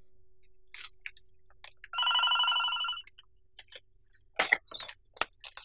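Desk telephone ringing: one electronic ring with a fast trill about two seconds in, lasting about a second. A few soft rustles and taps come before and after it.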